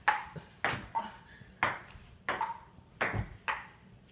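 Table tennis ball being hit back and forth, clicking off the paddle and bouncing on the table in a quick, even rally of sharp pings, about three a second.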